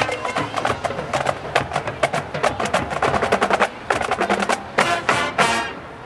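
Marching band drumline playing a rapid percussion passage of sharp drum strokes, ending with a few final hits about five and a half seconds in.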